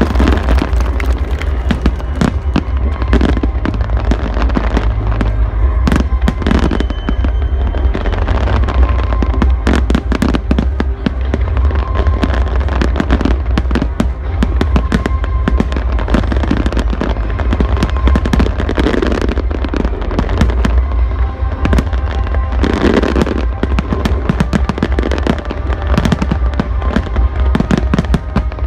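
Aerial fireworks going off in a dense, continuous barrage: rapid bangs and crackling reports, one after another with no pause.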